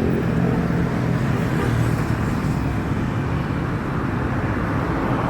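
Road traffic with a motor vehicle's engine running, its hum clearest in the first second, under a steady wash of road noise.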